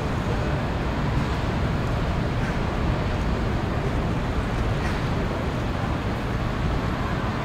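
Steady low rumble of distant traffic and harbour noise, even throughout.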